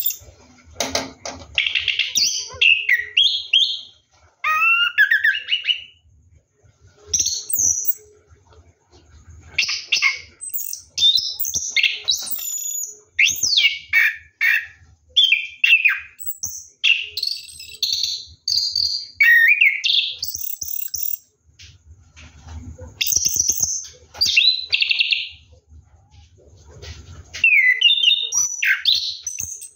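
Orange-headed thrush singing a rapid, varied run of chirps, trills and gliding whistles in long phrases broken by short pauses.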